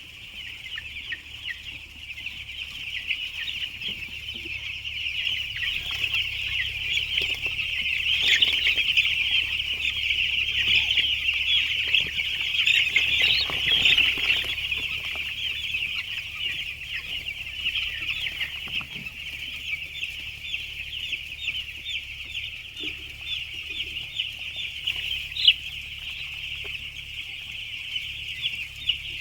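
A flock of 11-day-old chicks peeping, a dense continuous chorus of high chirps that swells louder in the middle and then eases.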